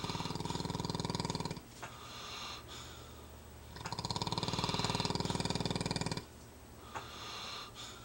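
Heavy snoring from a sleeper: two long, rattling snores, one at the start and one a little after the middle, with quieter breathing between them.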